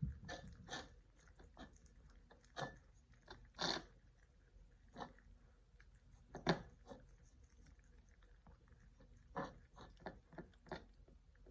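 Cats chewing their food: faint, irregular crunches and clicks, scattered a second or more apart.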